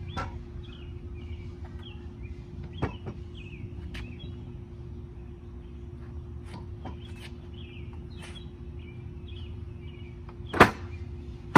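A heavy 70 lb wooden Moravian workbench top being set on and shifted across its trestle base: a few light wooden knocks, then one loud thump near the end. Birds chirp throughout over a steady low hum.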